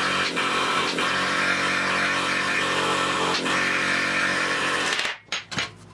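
Power tool motor running steadily at a constant pitch on sheet-metal repair work, switched off suddenly about five seconds in, followed by a few short blips.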